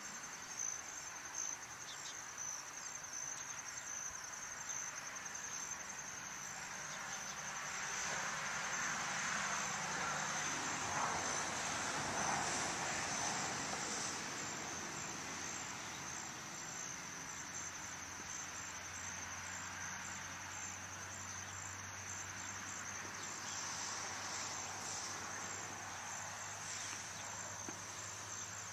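Insects chirping in a steady, high, pulsing chorus. A broad rushing noise swells about eight seconds in and fades again by about fourteen seconds.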